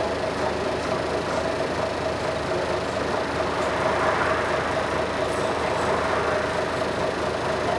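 Scania L113CRL bus's 11-litre six-cylinder diesel engine running steadily, with a steady high tone over the engine noise.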